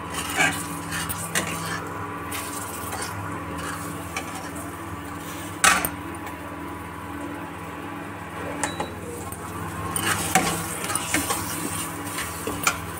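Steel spatula scraping and clinking against a metal kadhai as spice masala is stirred, with a few sharp clinks, the loudest about halfway through. A steady hum from the induction cooktop runs underneath.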